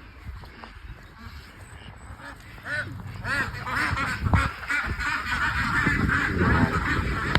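A large flock of domestic waterfowl calling, with many overlapping calls. The calls start about three seconds in and build to a loud, continuous chorus.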